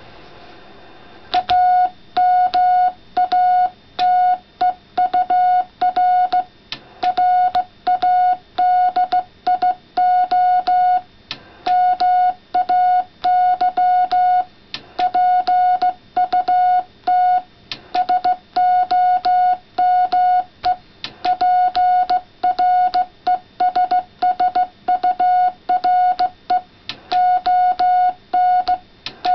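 Morse code sidetone from an amateur radio transceiver: a single steady mid-pitched tone keyed on and off in dots and dashes by a homebrew CW key built into a leather wallet. The sending starts about a second and a half in and runs on in groups of short and long tones.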